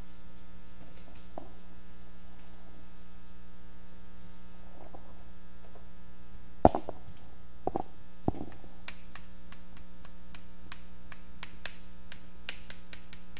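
Steady electrical mains hum in the microphone line. A sharp knock comes about halfway through, then a couple of softer ones, and near the end a string of light, quick chalk taps as chalk writes on the blackboard.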